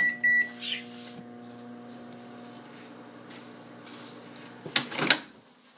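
Microwave oven keypad beeping twice, then the oven running with a steady hum. The hum stops about three-quarters of the way through, followed by a few sharp clicks.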